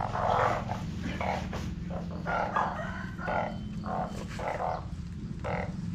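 A sackful of captured balloon frogs croaking in a low, steady drone, with short rustly bursts about twice a second as the woven sack is opened and handled.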